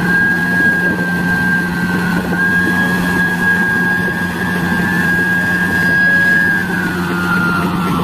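Hyundai Robex 80-7 hydraulic excavator running under load: a steady diesel hum with a high whine over it that climbs slightly in pitch at the start and drops away near the end.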